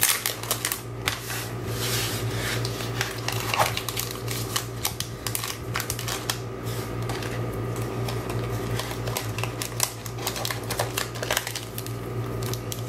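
Scrapbooking kit papers, stickers and packaging being handled and put away: a busy, irregular run of small clicks, taps and rustles, over a steady low hum.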